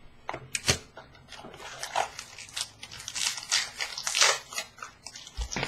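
Handling a trading-card box and its packaging: irregular rustles, crinkles and light taps as the box is opened and the cards are slid out.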